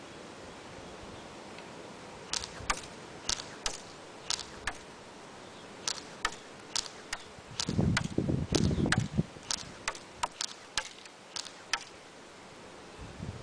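Echo 1 Red Star AKM airsoft electric gun firing about ten single shots. They are sharp clicks, most followed a moment later by a second click. There is a low rustling rumble about two-thirds of the way through.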